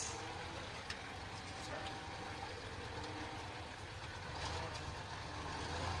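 Ural six-wheel-drive crane truck's engine running under load as it pushes through deep mud, a steady low drone that swells slightly over the last second or two, with one brief tick about a second in.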